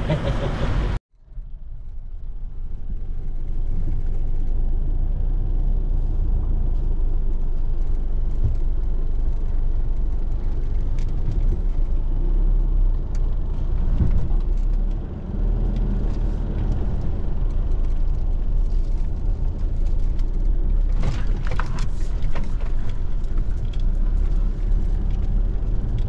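4x4 vehicle driving on a rough track: a steady low rumble broken by scattered knocks and rattles, after a brief drop-out about a second in.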